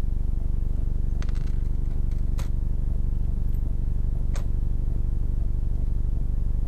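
A steady low mechanical hum, with a short run of light clicks about a second in and two sharp clicks later on.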